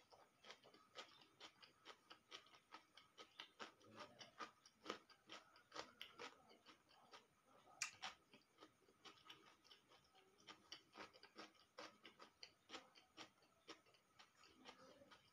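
Faint eating sounds: quick, irregular clicks, several a second, from a mouth chewing and fingertips picking the last grains of rice off a paper wrapper.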